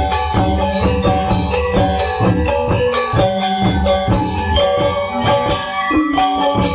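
Balinese gamelan angklung ensemble playing: bronze metallophones and gongs struck in a dense, fast interlocking rhythm, their tones ringing on between strokes.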